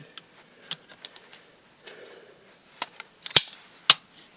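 Hard fire alarm devices being handled, giving scattered light clicks and then three sharper knocks near the end.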